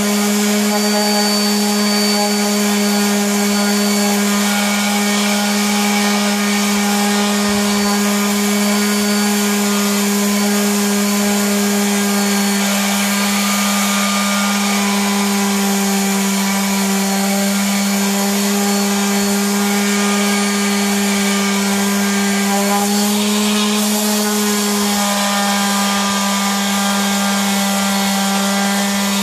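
Electric random orbital sander running steadily, its pad grinding down cured polyester-resin fiberglass putty. There is a constant motor hum over a rasping hiss, and its pitch sags slightly for several seconds in the middle.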